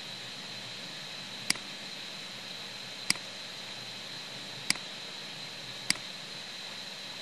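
Four sharp computer mouse clicks, spaced about a second and a half apart, over a steady hiss with a faint high-pitched whine.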